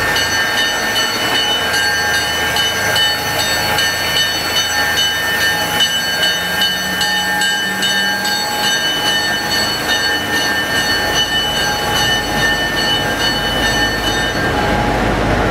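Diesel switcher locomotive running as it slowly moves another locomotive through the shed, with steady high-pitched whining tones over the rumble and the low rumble growing heavier about two-thirds of the way through.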